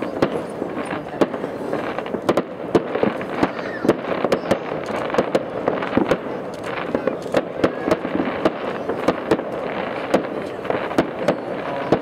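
Fireworks display: aerial shells bursting in an irregular, unbroken stream of sharp bangs and pops, several a second, over a continuous rumbling din.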